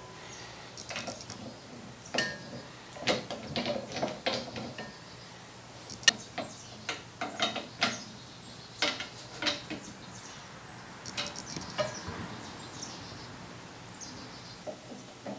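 Socket ratchet wrench clicking in short irregular runs as nuts are tightened on the bolts of a cast-iron Singer treadle sewing machine base, with a sharper single click about six seconds in.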